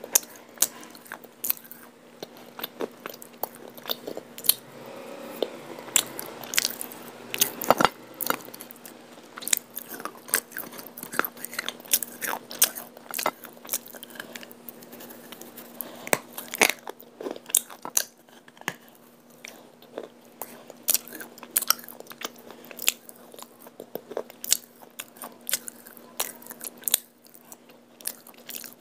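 A hard chunk of dry white clay being bitten and chewed: a long run of sharp, irregular crunches with chewing in between.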